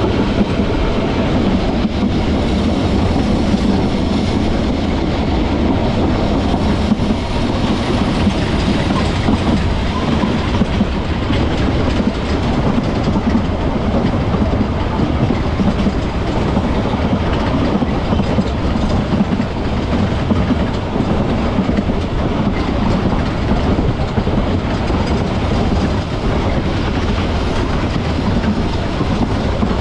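Vintage Manx Electric Railway tramcar running along the line, its wheels rumbling steadily on the rails.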